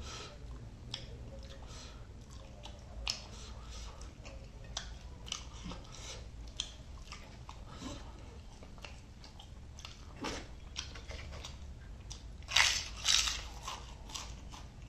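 A person chewing and biting food, spicy prawns masala, with many small mouth clicks and a couple of louder bites near the end.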